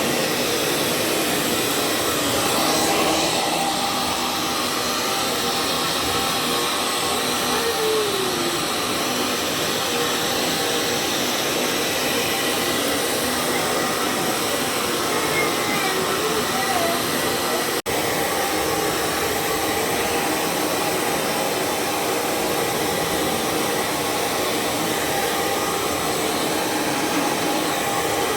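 Handheld hair dryer blowing steadily, a constant rush of fan and air, broken once by a momentary dropout about two-thirds of the way through.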